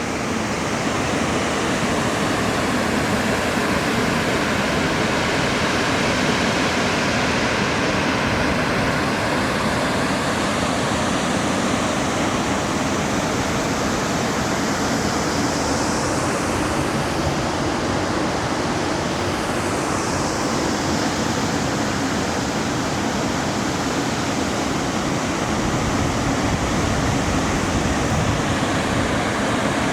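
Steady rush of falling water from the Hjálparfoss waterfall.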